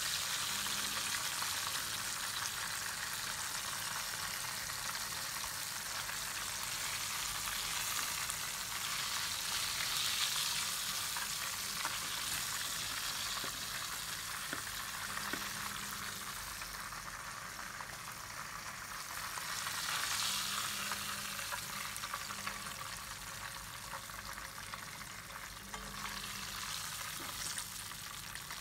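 Breaded chicken pieces sizzling steadily in hot coconut oil in a frying pan, the hiss swelling and easing, as pieces are lifted out with a slotted metal spatula.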